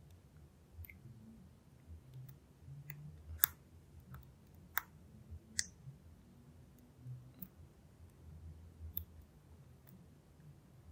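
Faint, scattered clicks and taps of a lock pick working the pins of a Brady LOTO padlock with an Abus keyway, its plug held in a false set by a tension wrench. There are about ten separate clicks, the sharpest about three and a half seconds in.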